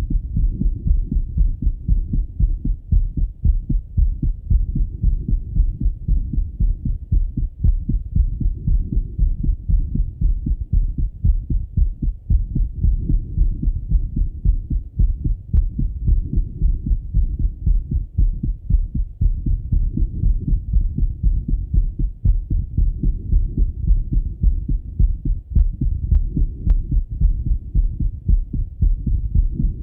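Male heartbeat heard through a Littmann stethoscope chest piece after a run: a steady, even rhythm of low, muffled beats.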